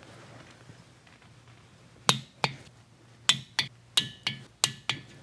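Click-type torque wrench working on cylinder head nuts: about eight sharp metallic clicks and taps from about two seconds in, the later ones with a short metallic ring.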